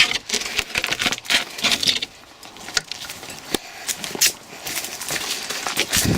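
Irregular light clicks and knocks, several a second, over faint rustling.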